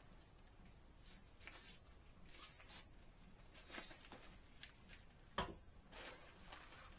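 Faint handling sounds from fishing gear being handled: scattered light clicks and rustles, with one sharper knock about five and a half seconds in.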